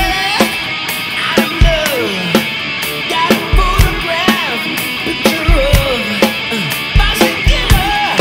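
Electric guitar and a live drum kit playing heavy rock together: the guitar plays a lead line that slides and bends up and down in pitch over steady kick drum thumps and snare and cymbal hits.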